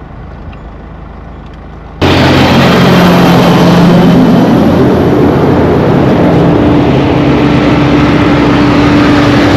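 Heavy oversize-load trucks passing close by at highway speed: a loud rush of engine drone with tyre and wind noise. It sets in abruptly about two seconds in after a quieter stretch, and the hum steps up in pitch midway as the next truck comes by.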